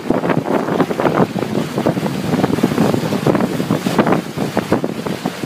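Wind buffeting the microphone in uneven gusts, over choppy sea water splashing around a moving boat.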